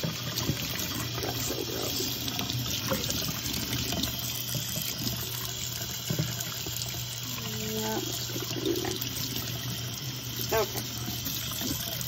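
Kitchen faucet running steadily, its stream splashing through a plastic dishwasher filter and onto a stainless steel sink.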